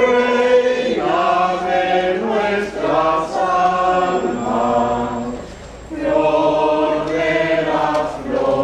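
Unaccompanied singing in long sung phrases, with a short break about five seconds in.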